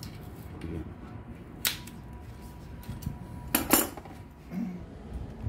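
Sharp clacks of hard objects knocking together: one about a third of the way in, then a quick pair about two-thirds in, over low background rumble.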